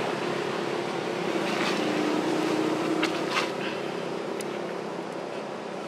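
A motor engine droning steadily in the distance and slowly fading away, with a few faint clicks about halfway through.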